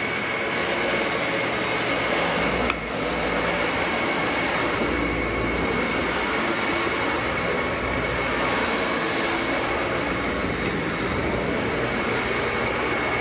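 Dyson Ball Animal upright vacuum cleaner running steadily as it is pushed over carpet, a constant motor noise with a steady high whine, dipping momentarily about three seconds in.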